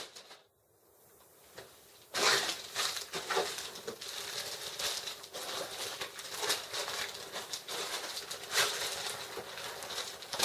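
Plastic bait packets crinkling and rustling with small clicks and rattles as soft-plastic trailer baits are dug out of a tackle box, starting about two seconds in after a short hush.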